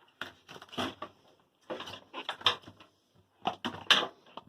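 Rubber door boot of a front-load washer being pulled and worked off by hand: rubbing and light knocks in three short bursts.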